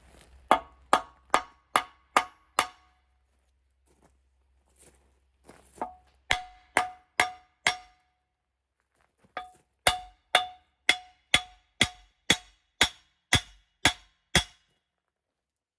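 Hammer blows on steel in three runs of steady strikes, about two a second. Each blow rings with a clear metallic tone.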